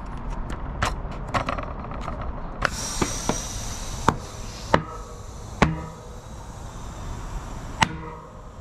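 Small clicks of the Topeak JoeBlow Booster's lever and head, then a short rush of air about three seconds in as its charged canister is released into a tubeless mountain bike tire, followed by four sharp snaps as the tire bead seats onto the rim.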